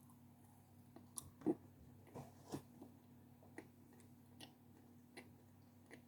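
Close-miked chewing: about eight soft, sharp mouth clicks and small crunches at uneven intervals, the loudest about a second and a half in.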